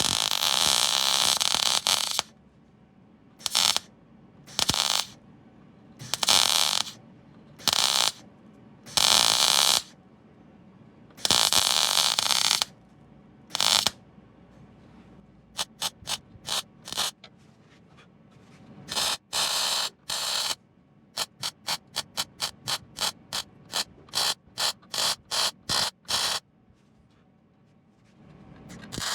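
MIG welder laying plug welds on a car's sill panel: crackling bursts of a second or two at first, then runs of short stabs at about two or three a second.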